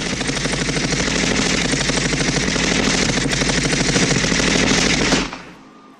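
Machine-gun fire sound effect played over the concert PA in one long, rapid, unbroken burst that stops suddenly about five seconds in.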